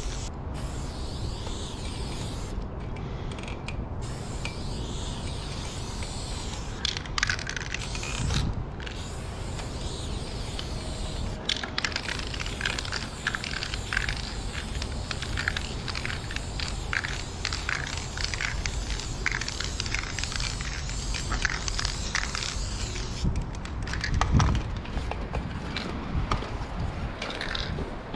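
Aerosol spray can of black Dang Prime paint hissing as fill-in is sprayed onto a concrete wall, in long passes and quick short bursts with a few brief stops. A dull bump near the end.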